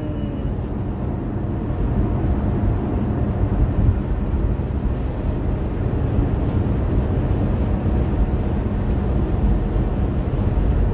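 Steady low rumble of road and engine noise heard inside a car's cabin while cruising on a highway.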